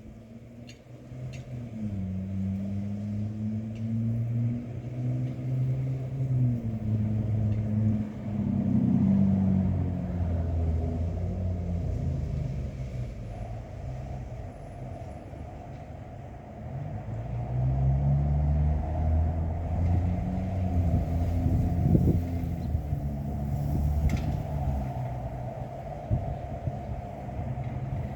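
Wind gusting, a low rumble that swells, eases for a few seconds near the middle, then builds again, with a few light clicks.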